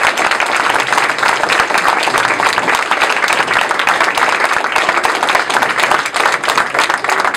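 Audience applauding: many people clapping at once, loud and steady.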